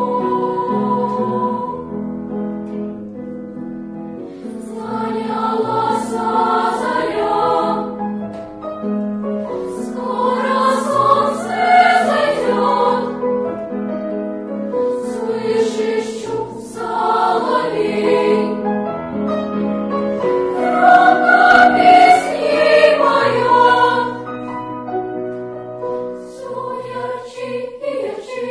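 Children's choir singing in several parts, holding long notes in phrases that swell louder and then ease off.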